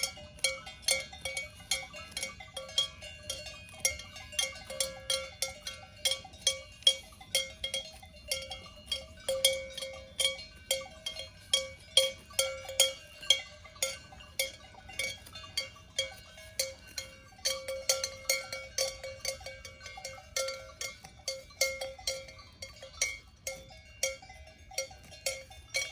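Several cowbells on grazing cows clanking in an uneven, continuous jangle of about two to three strikes a second. The bells ring at more than one pitch as the cows move their heads.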